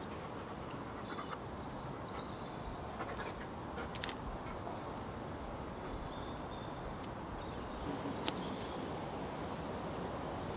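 Steady background hiss with a few faint clicks and taps as raw beef cubes are threaded onto wooden skewers on a wooden board.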